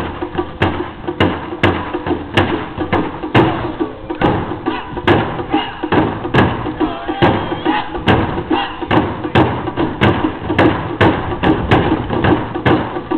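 Miyake-style taiko: barrel drums set low on stands struck hard with wooden sticks by players on both sides, a steady driving rhythm of sharp, ringing drum strokes.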